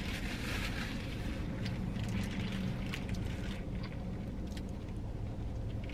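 Close-miked chewing of a mouthful of sandwich, with scattered wet mouth clicks and crackles, over a steady low hum inside a running car.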